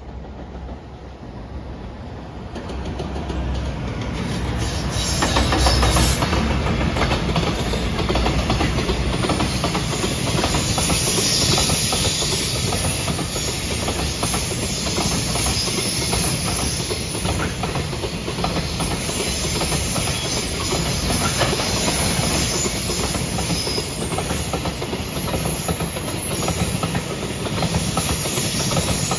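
Freight train approaching and then passing close by: the rolling noise grows over the first five or six seconds and then holds loud and steady as a long run of container flat wagons goes past, with wheels clicking over the rail joints.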